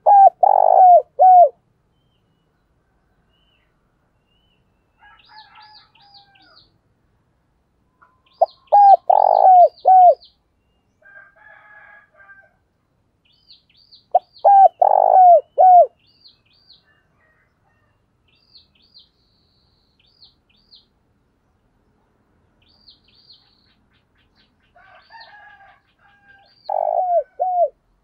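Spotted dove cooing, the calling song of a decoy bird: four loud phrases of three or four falling coos each, spaced several seconds apart. Fainter high chirping comes in the gaps.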